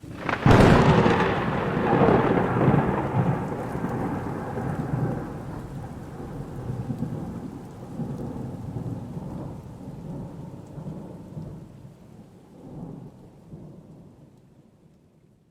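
A thunderclap that breaks suddenly about half a second in and rolls on as a long, low rumble, swelling a few times and slowly dying away.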